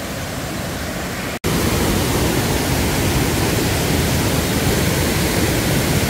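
Mountain stream water cascading over a sloping rock slab into a deep pool: a steady rushing hiss that cuts out for an instant about a second and a half in and comes back louder.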